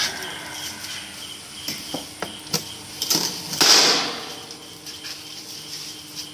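Clams being handled on a charcoal grill: several light clicks and knocks, then a short burst of hissing about three and a half seconds in. A steady high chirp runs underneath.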